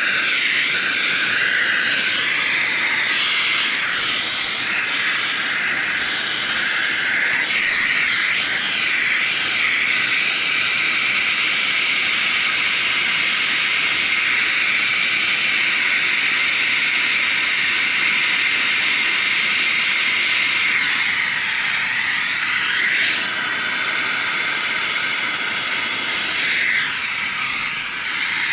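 Handheld gas torch burning with a steady hiss as it heats a soldered copper fitting to melt the solder and unsweat the valve. The hiss dips briefly near the end.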